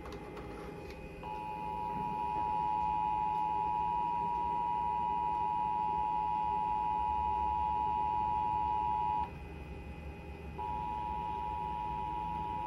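Emergency Alert System two-tone attention signal (853 and 960 Hz together): a steady dual tone that sounds for about eight seconds, stops, and about a second later starts again. It is the alert tone that marks an EAS activation, here the nationwide test.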